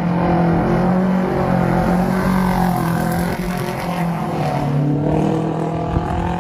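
Racing superbike engine running loud at a steady, nearly constant pitch that wavers slightly.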